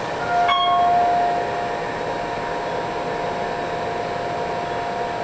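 A click and a single electronic ding about half a second in, fading over about a second, over the steady hum of an Otis hydraulic elevator cab in motion.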